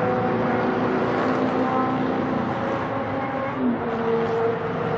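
Airbus A380 jet airliner on landing approach, its four engines a steady rumble with several held tones; a short falling tone about three and a half seconds in.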